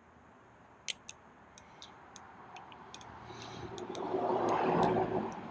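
Balisong (butterfly knife) clicking as it is fanned and spun in the hand: a string of sharp, irregularly spaced clicks. A rushing noise swells up in the middle and is loudest about four to five seconds in.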